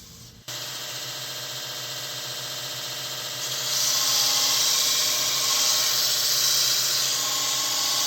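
Grizzly 2 x 42 inch 1 HP belt sander running a 50-grit ceramic belt, starting abruptly about half a second in. From about three and a half seconds in, a lawnmower blade is pressed to the belt and a louder, hissing grind comes in.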